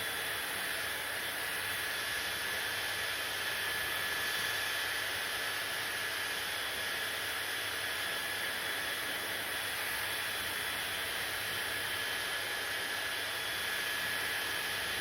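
Hair dryer running steadily: an even rush of blown air with a thin, steady high whine from the motor.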